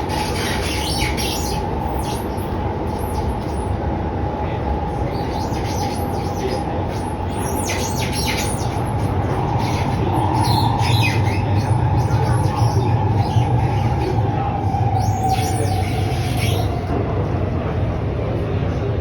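Alstom Movia R151 metro train running between stations, heard from inside the car: a steady running rumble that grows louder through the middle, with a steady whine underneath. Short, high-pitched squeaks come again and again over the top, the very loud squeaky sound this train makes.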